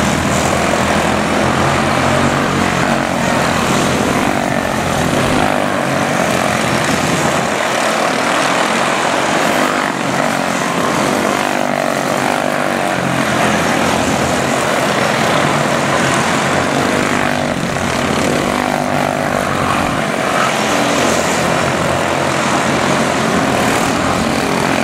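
A pack of quarter midget race cars with single-cylinder Briggs & Stratton Animal engines buzzing at full throttle as they lap, the pitch wavering up and down as cars come and go.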